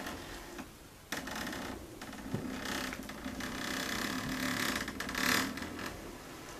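Old door slowly creaking open on its hinges: a drawn-out, rattling creak that starts about a second in and is loudest about five seconds in.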